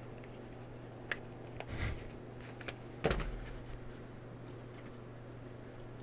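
Small clicks and a brief rustle as metal lock picks are handled in a leather pick wallet, with a louder knock about three seconds in, over a low steady hum.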